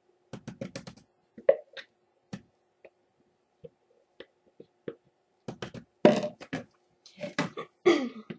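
Light taps, clicks and knocks of soap-making containers and utensils being handled, with a quick run of clicks near the start and a few louder scraping knocks near the end, over a faint steady hum.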